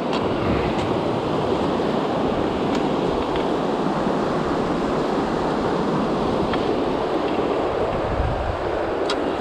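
Steady rushing of white-water rapids in a boulder-strewn mountain river, with a few faint clicks.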